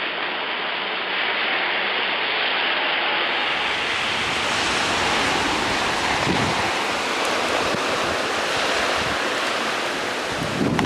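Rain falling in a steady hiss, with a brief low rumble of wind on the microphone about six seconds in.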